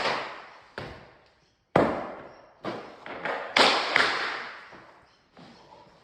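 Sharp knocks of timber floorboards being laid and knocked into place, about six over four seconds, each ringing out with a fading echo.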